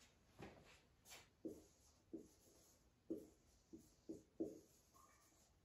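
Marker pen writing on a whiteboard: a string of faint, short strokes.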